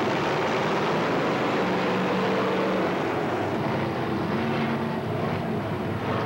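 Dirt-track race car engines running, a loud steady drone with the engine tone shifting up and down.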